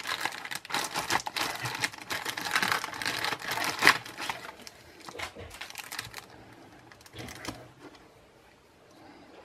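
Clear plastic bag crinkling and crackling as hands pull a remote control and manual out of it. The crinkling is dense for about four seconds, with one sharp crackle near the four-second mark, then thins to a few scattered rustles and stops near the end.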